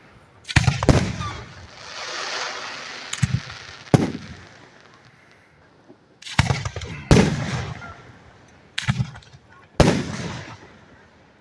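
Aerial fireworks shells bursting overhead: a run of sharp bangs, each followed by a fading echo, with a stretch of crackling hiss about two seconds in.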